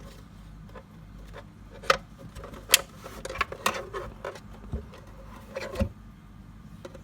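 Handling noises from a 12-volt car air compressor and its cables being picked up and turned over: scattered clicks, knocks and rubbing. The loudest click comes a little under three seconds in, and two dull thumps follow further on.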